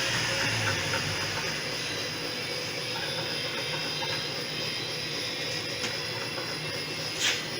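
RuidCar road-noise simulator platforms shaking a Ford Focus's wheels, a steady rattling clatter from the machine and the car's front suspension, run to reproduce a knock at the front corners. A short hiss near the end.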